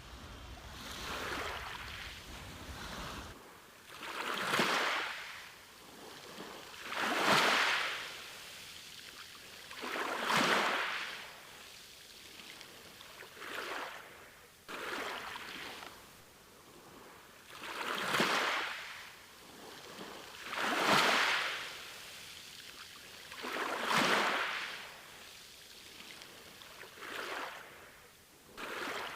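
Ocean waves washing onto a beach, the surf swelling and fading about every three seconds, some ten times in all.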